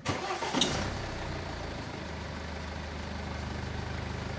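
Car engine starting with a loud burst and a sharp click in the first second, then settling into a steady idle with an even low pulsing.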